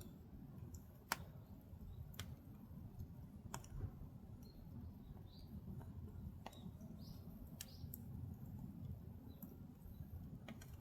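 Firewood burning in a Korean agungi (traditional ondol firebox). Irregular sharp crackles and pops, roughly one every second or two, sound over a low steady rumble of the fire.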